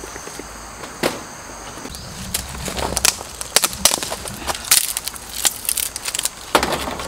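Dry sticks being snapped and laid into a stainless steel folding fire pit: a run of irregular sharp snaps and clatters, most of them in the second half.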